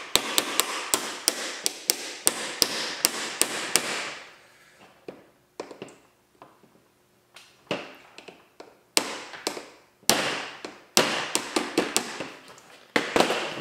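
Quick, repeated tapping as a metal pin is driven into a gel blaster's plastic body with a hand tool: a steady run of sharp taps at about four to five a second for the first few seconds, then a pause and shorter runs of taps again.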